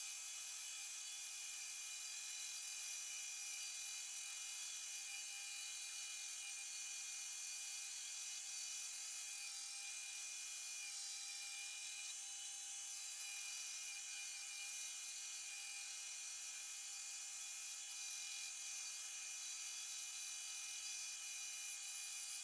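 Band saw running steadily as it cuts a curved outline through a thick block of wood, a steady high whine that does not change.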